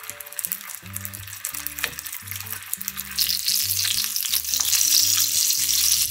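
Gyoza sizzling as they fry in oil in a square frying pan; the sizzle grows louder about halfway through.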